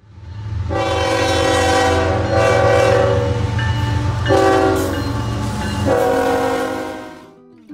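Train horn blowing a long call whose chord shifts a few times, over a low rumble of a moving train, fading out near the end.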